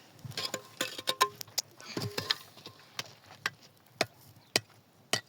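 Sharp knocks and clicks, several in quick clusters at first, then single hard knocks about every half second.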